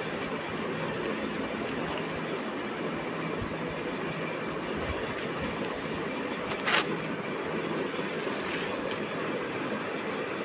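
Steady noisy background rumble with scattered small clicks and crackles of a cat crunching dry kibble, the loudest crackle about two-thirds of the way in.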